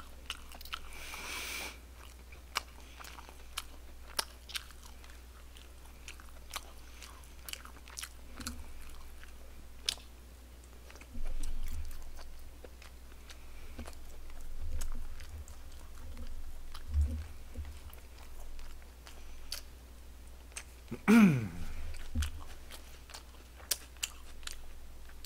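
Close-miked chewing of barbecued pork, with wet mouth clicks and smacks all through. Near the end comes a short falling vocal sound from the eater.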